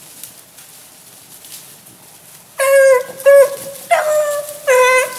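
Rabbit hounds baying on a rabbit's trail: four drawn-out, pitched bays in quick succession, starting about two and a half seconds in.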